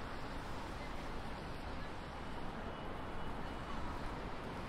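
Steady downtown street ambience: a continuous low traffic rumble and hiss with no distinct events standing out.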